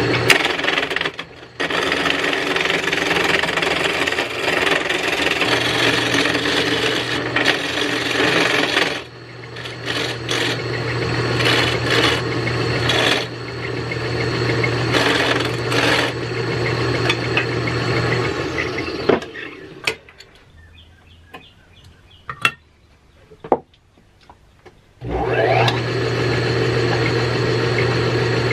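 Small electric wood lathe running while a hand-held turning tool cuts the spinning wooden mallet handle, giving a steady motor hum under a rough scraping of wood, with short breaks as the tool comes off. About 19 seconds in the lathe is switched off and winds down, a few light clicks follow, and about 25 seconds in it starts up again with a rising whine and runs steadily.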